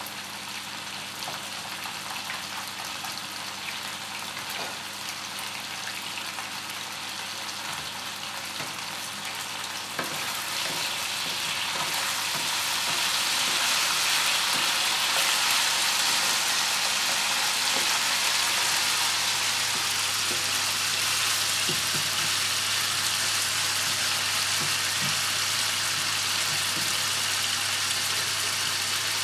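Cubes of pork neck frying in hot oil in a frying pan: a steady sizzle that grows louder from about ten seconds in, with wooden spatulas stirring the meat.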